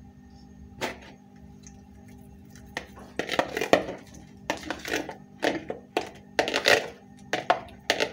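Peeled hard-boiled eggs rolling and knocking against the sides of a plastic mixing bowl as it is tilted and handled to coat them in curry paste. It comes in a series of short, noisy bursts that grow more frequent after about three seconds, over a faint steady hum.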